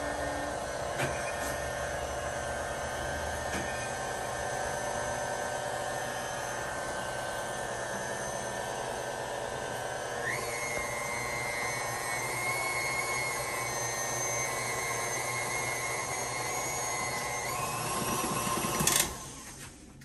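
KitchenAid tilt-head stand mixer running steadily as it mixes brownie batter in its steel bowl. Its whine steps up in pitch about halfway through and again near the end as the speed is raised, then the motor cuts off just before the end.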